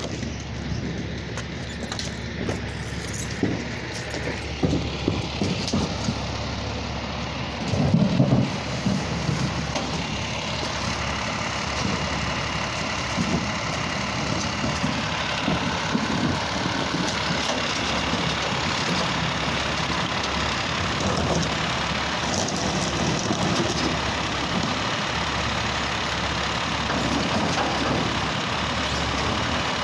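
Automated side-loader garbage truck's engine running close by, steady and getting a little louder after about ten seconds as it pulls up and idles. A few knocks early on, the loudest about eight seconds in.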